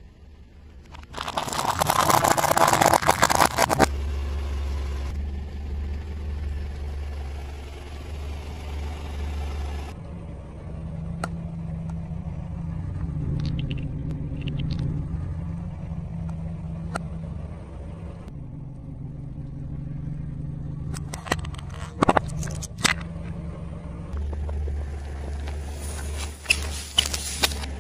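A car tyre rolling over and crushing objects on asphalt while the car's engine runs low and steady underneath. A loud, dry crunching lasts a few seconds near the start, then mostly the engine's hum with a few small clicks, and near the end several sharp pops and crackles as small plastic bottles are squashed.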